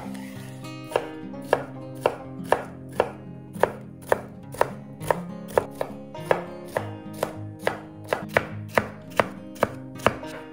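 Kitchen knife chopping on a cutting board in an even rhythm of about two strokes a second.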